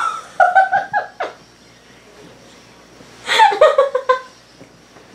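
A girl laughing in two bursts of short repeated ha-ha sounds, one in the first second and another about three seconds in.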